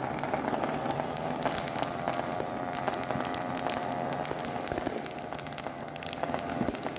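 Ground fountain fireworks spraying sparks, with a dense run of crackling firecracker pops going off all around.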